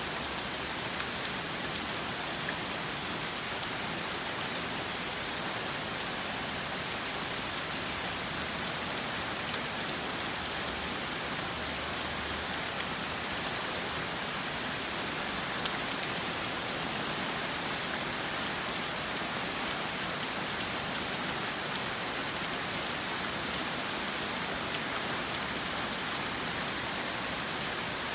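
Steady rain falling on a surface, an even hiss with fine drop ticks and no change in strength.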